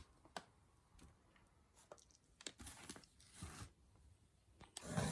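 Faint rustling and crinkling of wrapped advent-calendar packages being handled, with a few soft clicks and a louder rustle near the end.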